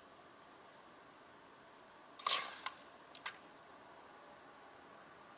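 Quiet background with a faint steady high whine; about two seconds in, a short rasping scrape with a click, then a few more sharp clicks about a second later, like hands working the controls of a mower.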